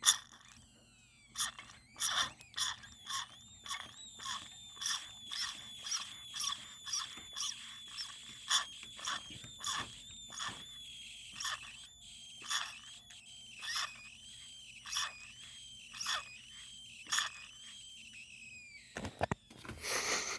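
A funny high-pitched squealing whine from an old Homelite chainsaw, wavering in pitch and mixed with irregular sharp clicks, sinking in pitch and stopping near the end. Its eerie, scream-like sound brings to mind the souls of a chainsaw's victims.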